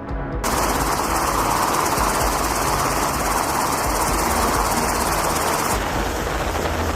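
Loud, steady aircraft engine noise that cuts in suddenly about half a second in, with background music underneath.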